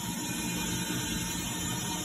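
Okuma MU-6300 V-L five-axis machining center with its rotary table spinning: a steady mechanical hum with a faint high whine.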